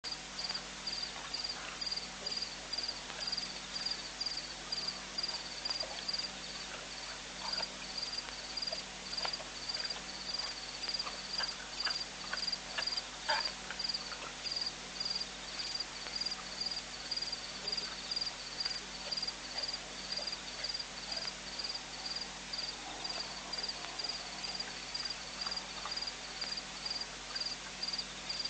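An insect chirping in a steady high-pitched rhythm, about two chirps a second, with scattered faint clicks and crackles around the middle.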